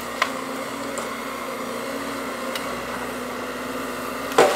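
Heavy equipment engine running steadily, with a few faint clicks in the first half.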